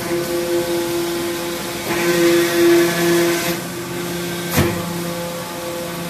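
Hydraulic power pack of a scrap metal baler running: electric motors driving hydraulic pumps give a steady hum and whine with a hiss above it. The hum swells louder for a second or so about two seconds in. A single sharp metallic knock comes a little after four and a half seconds.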